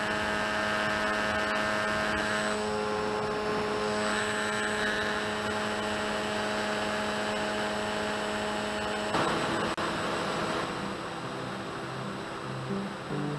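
Electric motor and pusher propeller of an FX-61 flying-wing model plane, heard from its onboard camera: a steady hum with a whining tone that shifts pitch slightly a few seconds in. About nine seconds in it changes abruptly to an even rush of air noise.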